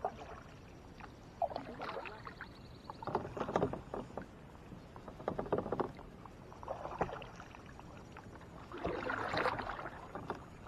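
Double-bladed kayak paddle strokes in calm water: a swish and splash as a blade dips and pulls, about one stroke every one and a half to two seconds.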